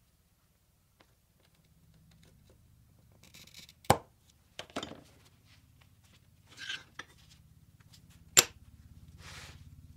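A glass cutter scoring a thin strip of glass with a short scratchy hiss that ends in a sharp click, followed by a few lighter clicks and scrapes. Near the end the scored glass snaps along the score line over a board edge with one very sharp crack, the loudest sound here.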